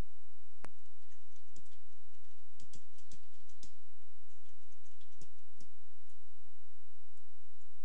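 Computer keyboard typing: a dozen or so irregular light keystrokes as a short sentence is typed, after a single sharper click about half a second in. A steady low electrical hum runs underneath.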